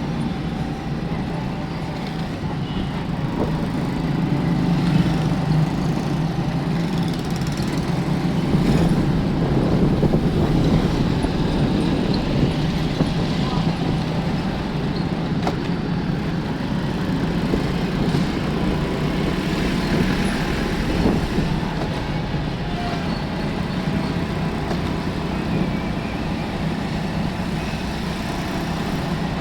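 Street traffic: vehicle engines running steadily, with road noise.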